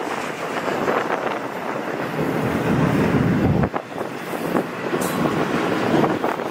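Double-stack intermodal container freight train rolling past, its steel wheels and cars rattling steadily along the rail.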